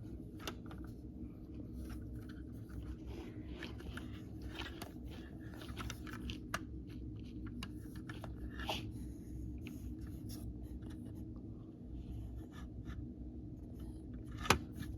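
Faint clicks and light scraping of a plastic Lego model being handled and a part of it opened, over a steady low hum, with a sharper click shortly before the end.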